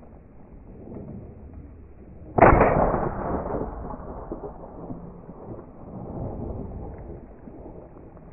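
A single shotgun shot about two and a half seconds in, its report rolling away and fading over a second or so.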